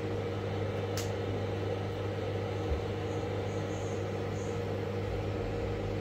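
Samsung GE83X microwave oven running with a steady hum, with a faint click about a second in.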